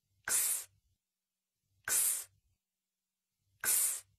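A person voicing the phonics sound of the letter X, a breathy 'ks', three times. Each is a short hiss with a sharp start, about a second and a half apart.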